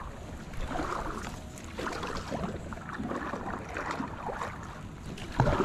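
Kayak paddle strokes dipping and splashing in the water, about one stroke a second. A sharper, louder knock comes near the end.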